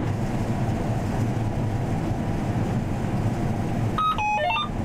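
John Deere S780 combine running, heard from inside the cab as a steady low drone. About four seconds in, a short run of electronic beeps changing in pitch sounds over it.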